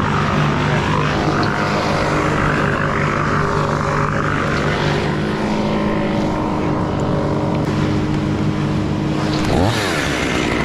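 Chainsaw engine running steadily at speed, cutting a limb section high in a tree, with a quick change in pitch near the end.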